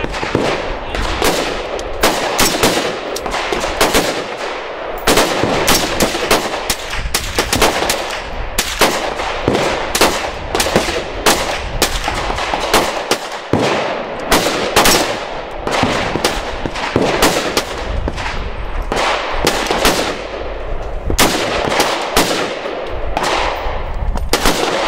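Gunshots in quick, irregular succession, often several a second, each sharp crack followed by an echoing tail.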